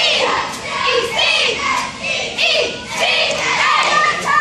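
A squad of girls shouting a cheer in unison, the words chanted in short rhythmic phrases.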